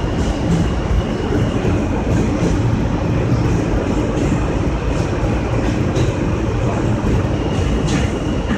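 New York City subway train running along elevated track, heard from inside the front car: a steady rumble of wheels on rail with occasional sharp clicks. A faint high steady whine fades out after a second or so and comes back near the end.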